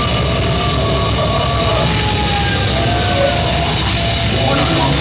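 Death metal band playing loud live music, with long held guitar notes sliding slowly in pitch over a dense low rumble.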